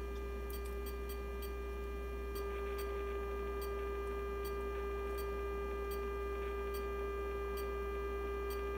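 Steady sine-wave test tone from the Elenco AM/FM-108CK kit's LM386 audio amplifier, a single mid-pitched note over a low mains hum. It gets slightly louder about two and a half seconds in as the input signal is turned up, with faint clicks now and then.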